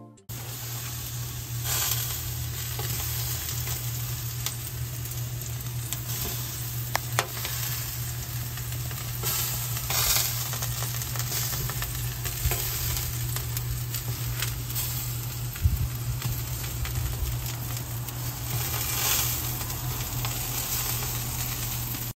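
T-bone steaks sizzling on a grill grate over hot charcoal, a steady hiss broken by scattered pops and crackles, with a steady low hum underneath.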